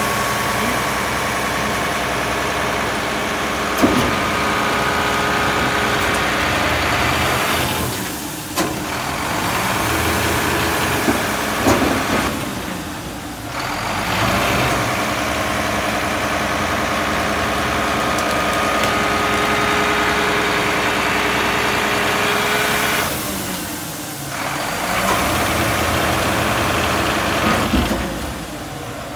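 McNeilus MSL side-loading garbage truck running with the diesel engine speeded up and a steady hydraulic whine as the packer cycles, easing off briefly a few times between strokes. A sharp knock about four seconds in, with a couple of smaller ones later.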